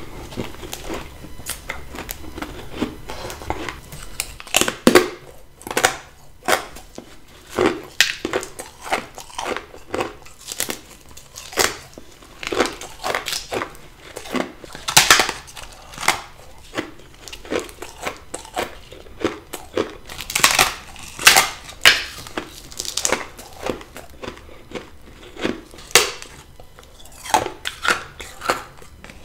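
Close-up bites and chewing of fluffy freezer frost ice: a string of crisp, crumbly crunches, one or two a second, with softer grinding between.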